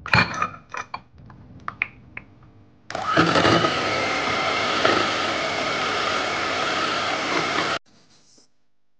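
Electric hand mixer beating matcha-flavoured whipped cream in a glass bowl, running steadily for about five seconds and cutting off abruptly. Before it starts there are a few clicks and knocks.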